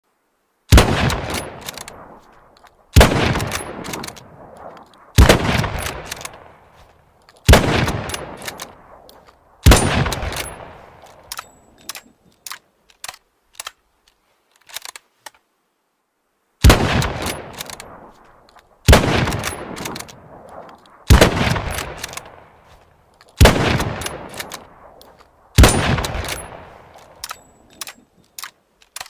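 Mosin-Nagant bolt-action rifle (7.62×54R) firing: five shots about two seconds apart, each ringing out and fading, followed by a run of short metallic clicks, then five more shots at the same pace and more clicks near the end.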